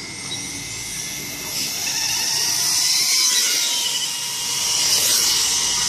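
1/10-scale on-road RC car driving past at speed, its motor giving a high-pitched whine that swells loudest about three seconds in and again about five seconds in.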